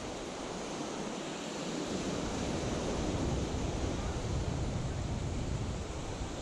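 Small waves breaking and washing up a sandy beach, the surf swelling louder about two seconds in and easing near the end, with wind rumbling on the microphone.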